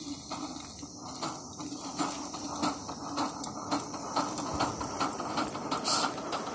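Live-steam Gauge 3 model LMS 8F locomotive hissing steam, with soft irregular puffs that come more often toward the end.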